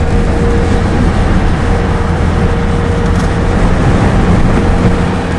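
Car driving at speed, heard from inside: steady engine and road rumble under a loud rushing noise that jumps up suddenly at the start.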